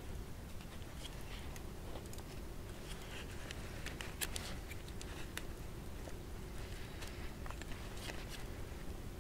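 Knife whittling a small piece of wood by hand: irregular short shaving scrapes and clicks of the blade on the wood, a few sharper than the rest.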